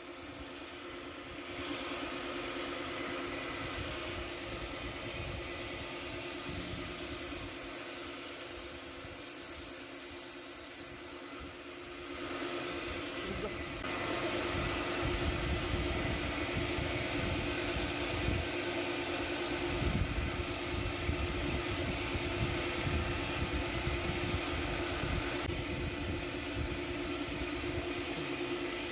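Electric motor of a small wood lathe running with a steady hum, while abrasive cloth and then bare hands rub on the spinning wooden piece, adding a hiss. The sound jumps in level at several cuts and is louder through the second half.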